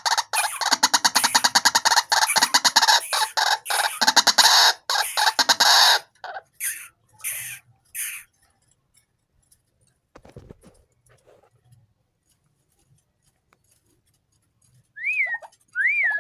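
White-breasted waterhen calling in a rapid run of rough, croaking notes for about six seconds, tailing off into a few separate calls and then stopping. Near the end a few clear whistled notes that rise and fall in pitch start up.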